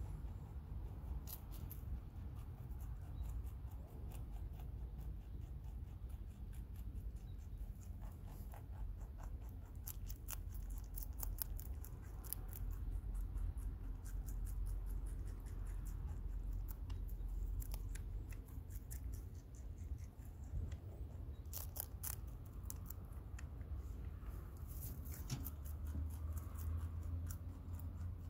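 A lop-eared rabbit chewing fresh leafy green stalks, crisp crunching clicks coming in quick runs, with a low steady rumble underneath.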